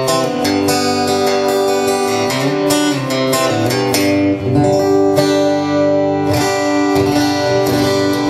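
Gibson Les Paul played through its Baggs piezo bridge saddles into an acoustic amp, giving an acoustic-guitar tone. Chords are strummed repeatedly and left to ring, with several chord changes.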